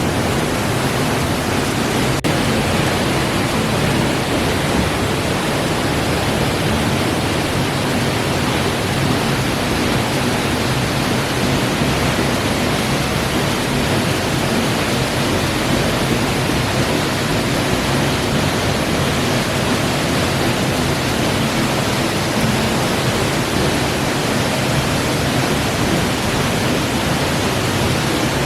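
Steady, loud rushing of falling water from a mountain waterfall, without a break.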